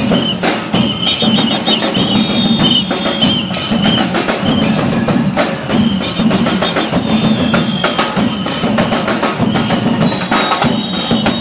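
Percussion music with fast, dense drumming and short repeated high notes over it.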